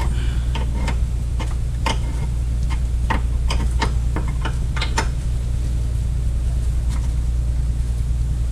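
Small irregular metallic clicks and taps from a spanner working a brake-line pipe nut as it is threaded and turned up, busiest in the first few seconds and then sparse, over a steady low hum.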